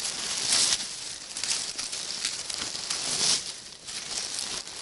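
Dry forest litter rustling and crackling as it is brushed and dug away around a porcini mushroom to uncover it, with many small crackles and two louder swells.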